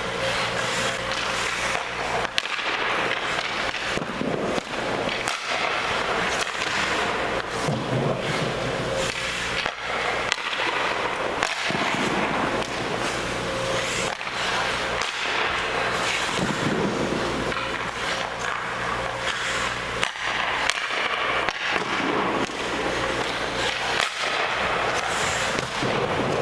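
Hockey skate blades scraping and carving across rink ice as a goalie shuffles and drops in the crease, with repeated sharp clacks of pucks striking sticks, pads and the boards, over a steady hum.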